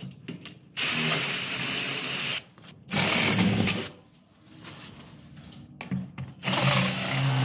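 Cordless drill run in three bursts of one to two seconds each, working into wood through a steel bracket's bolt hole. Its high motor whine sags briefly as it loads up.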